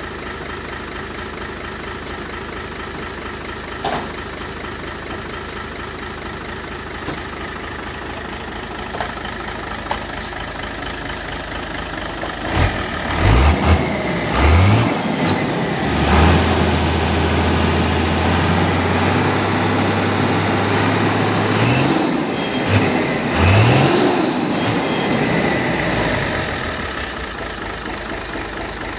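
Truck engine idling steadily with a few sharp clicks over it, then revved up several times from about halfway. The revs are held high for about six seconds, then it is blipped twice more before settling back.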